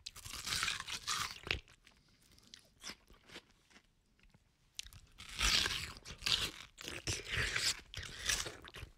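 A person biting into and chewing watermelon: wet, crunchy bites. Two bouts of loud crunching, one in the first second and a half and another from about five seconds in almost to the end, with a few small chewing clicks between them.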